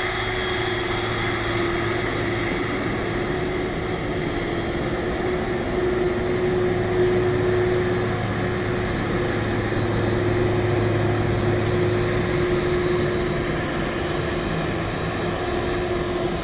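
Jet engines of a Boeing 767 taxiing past: a steady high whine over a low hum and a constant rush of air, growing slightly louder about six seconds in.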